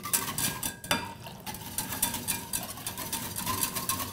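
Wire whisk beating milk and cocoa in a stainless steel saucepan, its wires clicking quickly and unevenly against the sides and bottom of the pan.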